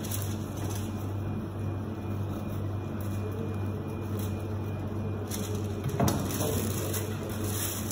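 Bread knife sawing through a paper-wrapped crusty baguette, with paper rustling over a steady low hum. A sharp knock about six seconds in as the knife is set down on a plastic cutting board.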